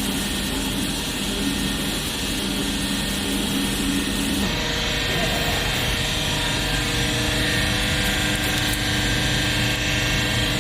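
Hydraulic baler's motor and pump running steadily with a droning hum; the low tone of the hum shifts to a higher one about halfway through, as the pump's load changes.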